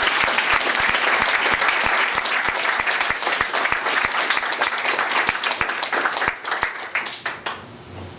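Audience applauding: many hands clapping at once, thinning out and fading near the end.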